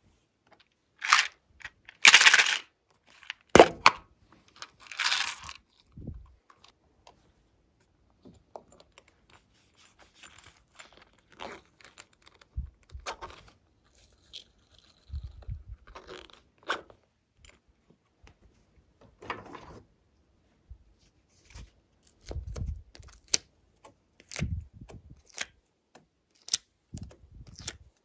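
Glossy slime being squished, stretched and pressed by hand, giving irregular sticky crackles and pops. These are loudest in the first few seconds, then scattered and softer.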